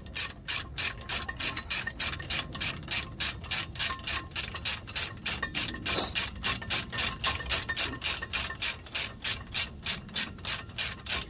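Hand ratchet wrench clicking steadily, about four clicks a second, as the brake caliper bracket bolts are run down and tightened.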